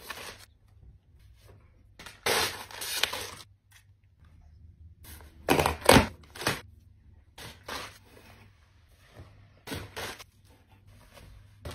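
Plastic garment bags crinkling and tearing open, and a cardboard shipping box being pulled open, in several short separate bursts of rustling. The loudest comes about six seconds in, as the box is opened.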